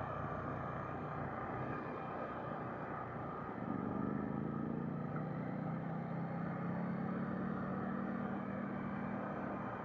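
KTM 890 Duke GP's parallel-twin engine running under way over a steady rush of wind and road noise. About three and a half seconds in, the engine note rises and grows louder as the bike accelerates, then holds.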